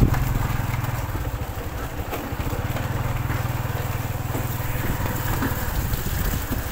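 Small motorcycle engine running steadily at low speed, with a fast even pulse.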